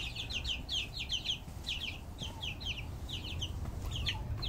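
Young chickens peeping: a rapid, continuing run of short, high cheeps, each falling in pitch, several a second in little clusters.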